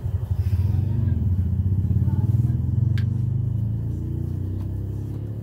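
A low engine rumble that grows louder over the first two seconds or so and then fades, like a motor vehicle passing by, with a small click about three seconds in.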